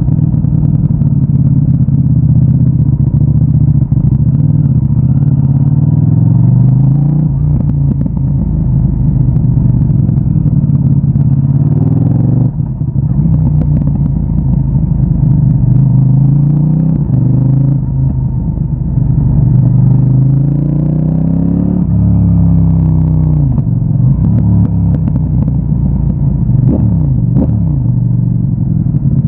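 CFMOTO 800NK Advanced's parallel-twin engine through its stock exhaust, pulling hard and rising in pitch several times with a short break at a gear change about twelve seconds in. The pitch falls away as the bike slows down around twenty-two seconds and again near the end.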